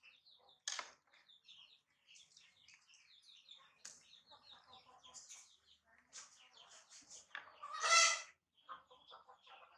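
Chickens clucking and small birds chirping repeatedly, with one louder call about eight seconds in.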